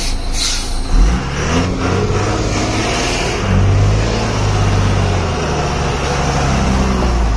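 Truck engine revving under load as the truck is driven through a rough, stony stretch, its pitch shifting and getting louder about three and a half seconds in. A single knock sounds about a second in.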